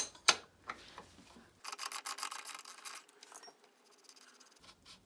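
Sharp metal tool clicks, then a run of rapid fine clicking and rasping for about a second and a half as the rear axle nut is spun off with the wrench, followed by a few light clicks.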